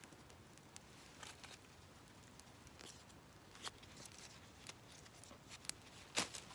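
Faint, sparse snaps and clicks of a small tinder-and-twig campfire just catching after being lit with a ferro rod, a few scattered pops with the sharpest one near the end.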